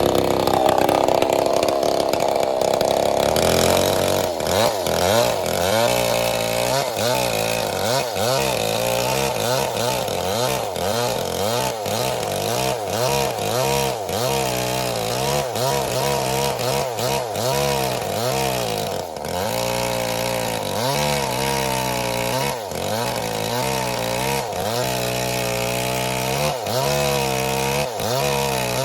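Small diesel engine running, its speed swinging up and down in a steady, regular surge, roughly once or twice a second, from a few seconds in.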